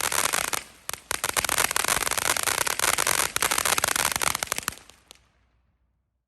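Consumer firework fountain (Smoking Alien's 500g Hollering Hippos) giving off dense crackle, with a brief lull just under a second in. It dies away about five seconds in as the fountain burns out.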